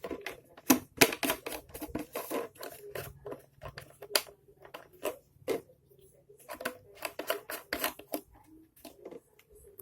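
Plastic 2T oil mixing bottle and its packaging being handled: an irregular run of sharp clicks, taps and short scrapes, with a brief pause about six seconds in.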